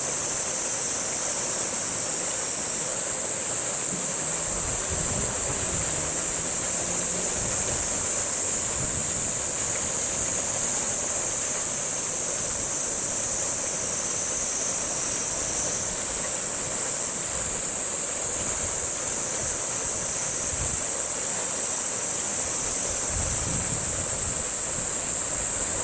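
Steady, high-pitched chorus of summer cicadas shrilling without a break. Some low rumbling comes in about four seconds in and again near the end.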